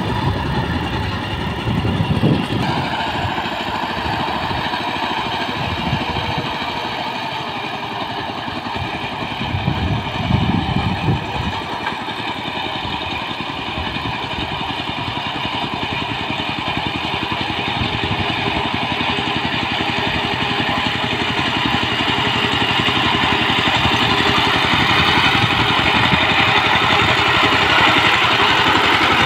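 Single-cylinder diesel engine of a two-wheel power tiller running steadily under load as it churns through a flooded rice paddy. It grows louder over the last third as the machine comes close.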